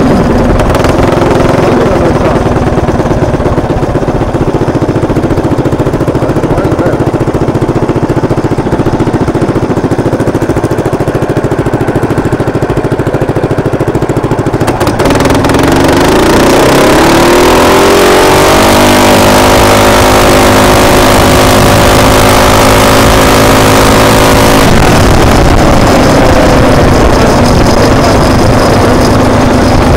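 Built Predator 224 single-cylinder four-stroke engine on a small motorbike, running on an E50 ethanol mix through a 30 mm PWK carburettor, with wind on the microphone. It runs at low, steady revs for about half the time. It then revs up in a rising pitch as the bike accelerates, holds high revs for several seconds, and drops back near the end.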